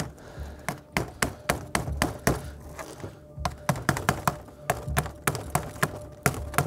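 Hammer tapping rapidly on a frozen SIG 553 rifle, about three to four sharp metallic knocks a second with a short pause about three seconds in, knocking off the ice that has frozen its safety and action.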